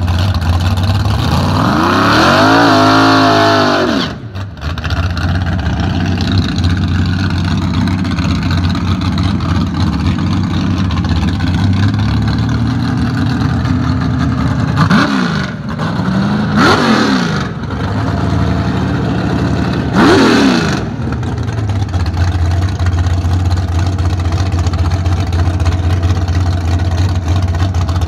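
A 1968 Camaro drag car's engine revs up and back down over about two seconds, then runs at a loud, steady idle broken by three quick throttle blips in the middle of the stretch.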